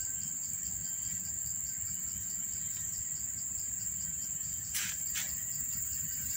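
Insects trilling steadily in a high, fast-pulsing tone over a low background rumble, with two short clicks close together about five seconds in.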